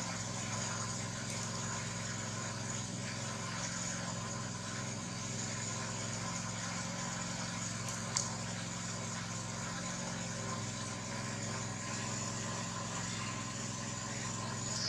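A steady mechanical hum, like a motor running without change, with one short click about eight seconds in.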